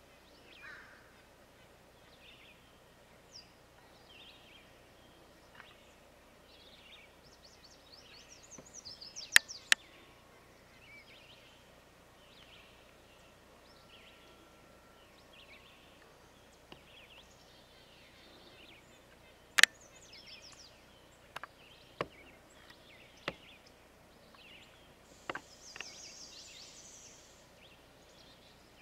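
Wild songbirds chirping and calling in short, scattered phrases. A handful of sharp clicks cut through, the loudest a pair about nine seconds in and another about twenty seconds in.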